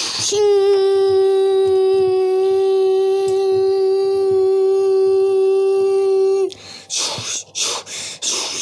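A steady pitched hum held on one note for about six seconds, starting with a slight upward slide and cutting off abruptly, followed by short hissing bursts.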